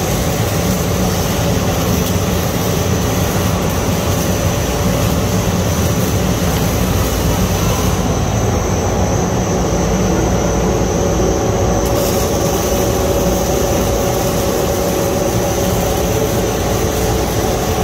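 ABA blown film extrusion line running: a loud, steady machine drone with a constant low hum, a mid-pitched tone and a thin high whine.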